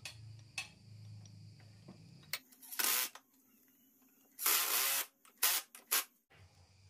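Makita cordless impact driver driving screws through a steel plate into plywood in short bursts: about half a second of hammering, a longer burst of just under a second, then two quick bursts as the screw seats. A low hum and a couple of handling clicks come before the first burst.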